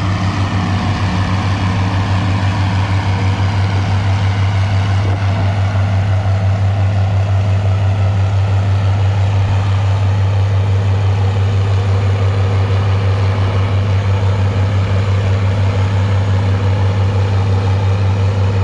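Heavy farm tractor engines running at a steady pitch, a deep even drone with no revving or stops.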